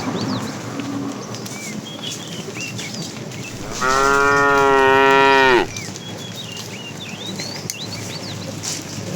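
A cow mooing once: one long, even call of about two seconds that drops in pitch as it ends, over faint high chirps.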